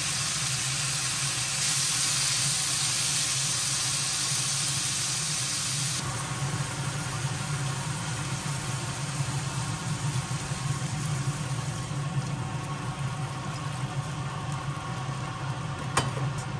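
Kitchen cooking noise: a steady hiss over a low hum. It changes abruptly about 2 and 6 seconds in, and there is a single sharp click near the end.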